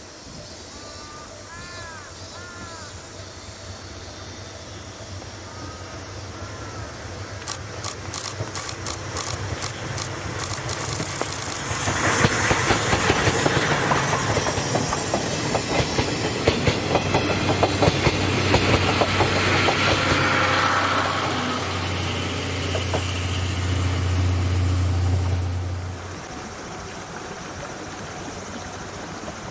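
Tobu C11 207 steam locomotive approaching and passing close by with a brake van and three 14-series coaches: chuffing as it nears, then loud rapid wheel clicks over the rail joints as the coaches go by, with a steady low hum under the last cars. It cuts off suddenly about 26 seconds in, leaving a steady rushing background.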